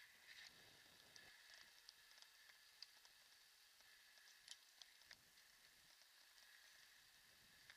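Near silence: a faint steady hiss with a few small, scattered clicks.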